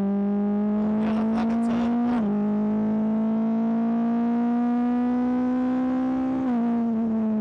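BAC Mono R's 2.5-litre Ford Duratec four-cylinder engine pulling hard, heard onboard. Its pitch climbs, drops sharply with an upshift about two seconds in, and climbs again. Near the end the pitch drops once more and eases lower.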